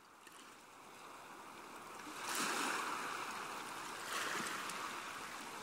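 Sea waves washing in, fading up from quiet and swelling twice, about two seconds in and again about four seconds in.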